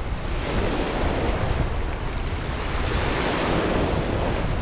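Wind buffeting the microphone over the steady rush of river water.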